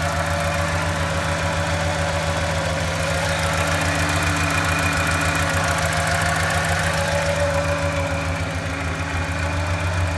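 Ford 2.9L V6 of a 1989 Bronco II idling steadily with a slightly uneven pulse. It is running on five cylinders: cylinder 4 is not firing, which the owners suspect comes from an intake manifold gasket leak.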